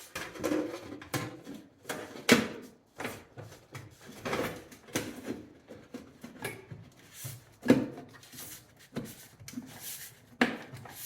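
Single-wall metal stove pipe being handled and fitted together: irregular knocks, clanks and scraping, with the sharpest knocks about two seconds in and near eight seconds.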